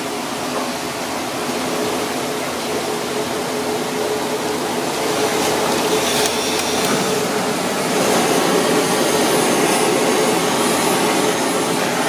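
Steady rushing noise of running kitchen equipment, with a constant low hum underneath. It gets a little louder about halfway through.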